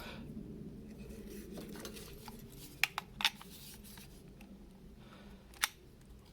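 Foam cannon parts being threaded together by hand: soft rubbing and scraping of the fittings, with a few sharp clicks around three seconds in and one more near the end as the parts knock together.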